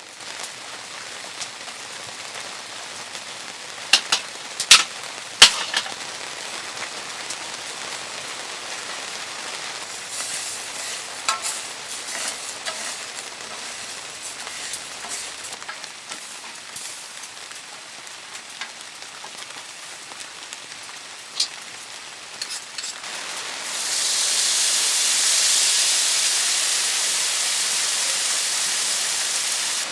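Steady sizzling hiss with a few sharp clicks and knocks about four to five seconds in; the hiss swells louder and brighter about 24 seconds in.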